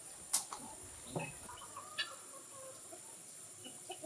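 Hens clucking in short calls, with a few sharp clicks of a metal spatula against the clay cooking pot, the loudest about a third of a second in.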